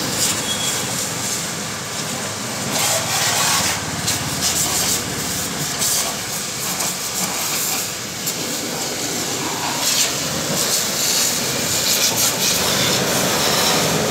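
High-pressure water jet from a hose spraying against the underside of a truck: a steady hiss that swells and fades as the jet moves over the chassis, over a faint low hum.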